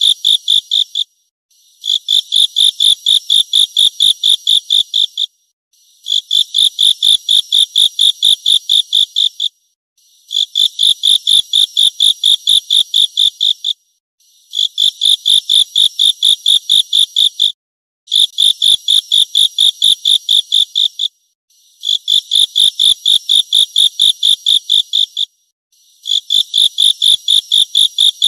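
Grasshopper stridulating: high-pitched trains of rapid pulses, about five a second, each train lasting some three and a half seconds with a short break before the next, repeating identically as if looped.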